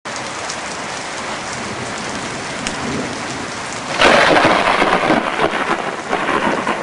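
Thunderstorm sound effect: steady rain with scattered drop ticks, then a sudden loud clap of thunder about four seconds in that rumbles on and slowly fades.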